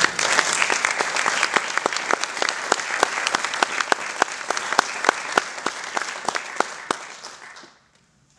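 Small audience applauding, with many sharp individual claps close by; the applause fades out near the end.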